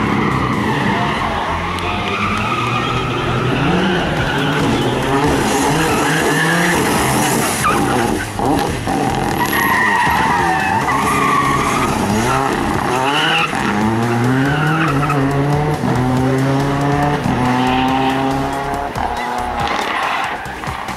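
Rally car engine under hard driving, its pitch repeatedly climbing and dropping as it accelerates, shifts gear and lifts off for corners.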